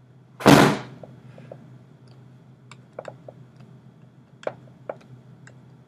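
One loud thump about half a second in, then a few faint light taps and clicks of a stylus on a pen tablet as letters are written, over a steady low hum.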